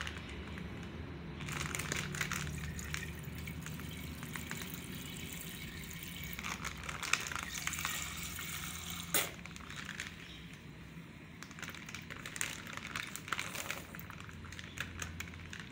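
Milk pouring from a plastic milk pouch into a steel pot, trickling in a thin stream because the pouch was only torn open a little.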